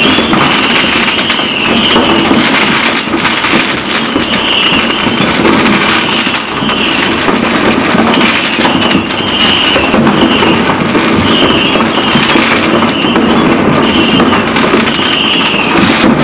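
Dense New Year's fireworks barrage: firecrackers, rockets and fountains going off nonstop in a thick, continuous crackle of bangs. Short high whistles recur about once a second.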